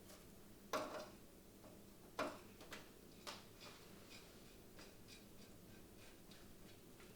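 Screws being driven by hand into a PC radiator and case: a few sharp clicks and scattered light ticks of the screwdriver and metal parts.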